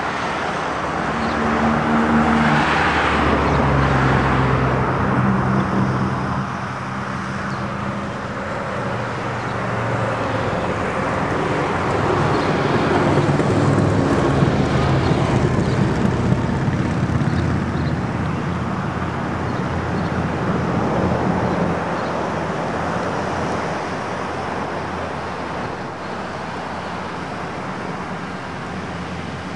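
Motor vehicle engine running, its low hum rising and falling in pitch, over steady outdoor road noise.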